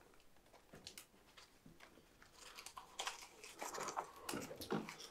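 Faint rustling and small scattered clicks and taps of a person moving and handling things, busier in the second half.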